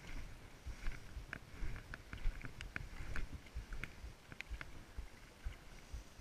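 Water sloshing and splashing around a wading angler's legs, with low wind rumble on the microphone and scattered short, sharp high ticks.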